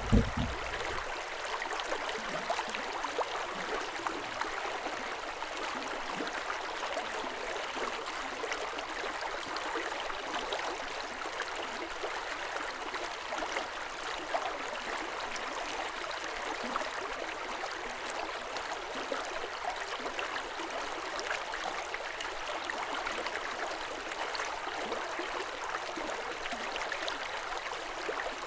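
River water running, a steady rush of flowing water with no let-up. A brief low bump comes at the very start.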